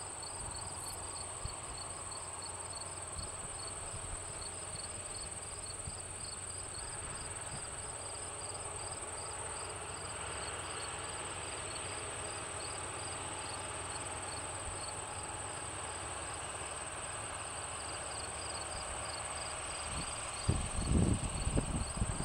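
Insects chirping in a steady, pulsing rhythm, joined from about halfway through by the faint, growing sound of farm tractor engines approaching. A few loud, low rumbles come near the end.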